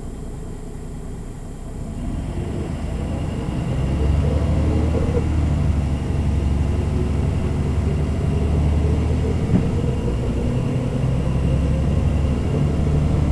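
Diesel engine of a MAN NG 313 articulated city bus, heard from inside the bus. It gets louder between about two and four seconds in, as it moves from a low run to working under load, then keeps running steadily.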